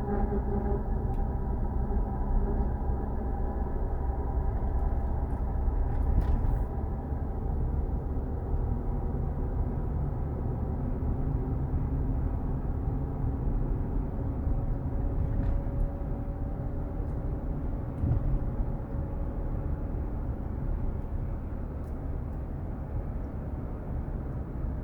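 2014 Infiniti QX60 under way: steady road rumble with a faint hum over it that slowly drifts up in pitch. This is the unexplained humming noise the owner is trying to diagnose.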